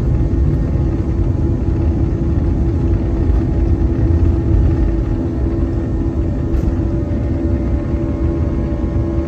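Jet airliner heard from inside the cabin during the takeoff roll: engines at takeoff power with a steady drone, over a heavy low rumble from the wheels on the runway, as the plane nears liftoff.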